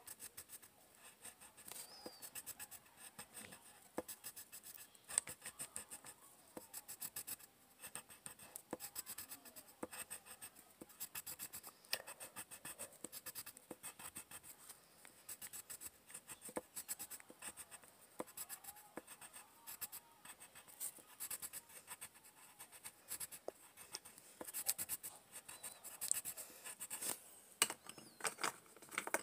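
Colored pencil scratching on paper in rapid, repeated back-and-forth strokes, shading in a drawing.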